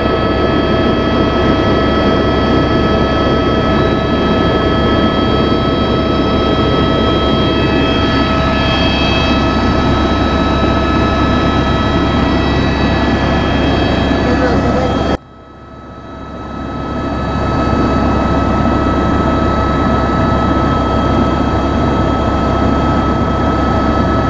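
Helicopter cabin noise in flight: the steady rush of the rotor and engine with a constant high turbine whine. About fifteen seconds in, the level drops suddenly and climbs back over a couple of seconds.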